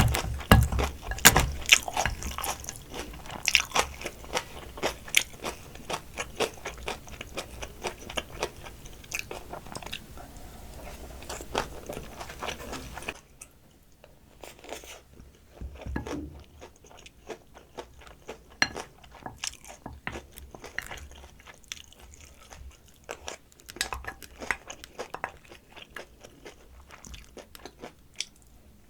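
Close-miked eating of soy-sauce-marinated raw crab: crunching and chewing with many sharp clicks. The clicks are dense and loud for about the first half, then the background drops suddenly about 13 seconds in and the chewing goes on more quietly and sparsely.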